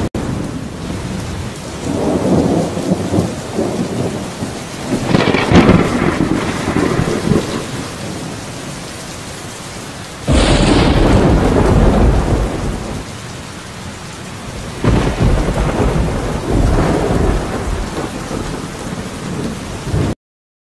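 Steady rain with rolling thunder. Rumbles swell several times, and a sudden loud clap about ten seconds in is the loudest. The sound stops suddenly just before the end.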